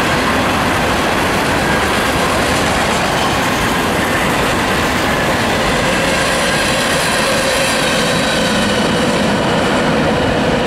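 Freight train cars rolling past: the steady running noise of steel wheels on the rails.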